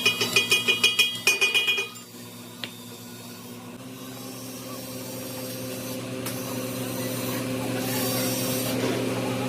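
A fast run of ringing metallic taps, about seven a second, lasting about two seconds. Then a steady engine hum that slowly grows louder.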